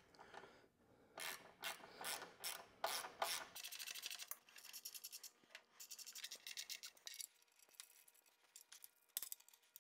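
Faint metallic rubbing and scraping as a skid-plate mounting bolt and washer are fitted by hand, then from about three and a half seconds in a run of quick ratchet-wrench clicks as the bolt is run in loosely, thinning out near the end.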